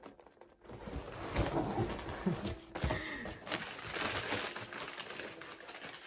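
Packing material rustling and crinkling as crystals are dug out of a box and unwrapped, with a few brief murmured vocal sounds.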